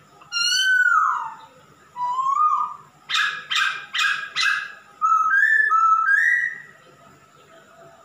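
Male masked laughingthrush (poksay Hongkong) singing loud whistled phrases. A falling slur comes first, then a short rising note. About three seconds in it gives four quick harsh notes, and it ends with a run of notes stepping upward.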